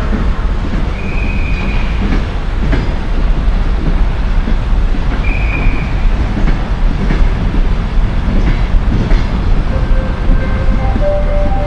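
EP1M electric locomotive hauling a passenger train away from the platform at low speed: a steady low rumble with wheels knocking over rail joints. There are two short, high wheel squeals, about one and five seconds in, and a steady whine joins near the end.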